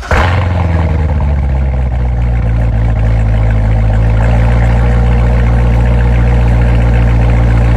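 An American muscle car's exhaust firing up with a sudden burst, then settling into a steady, loud idle.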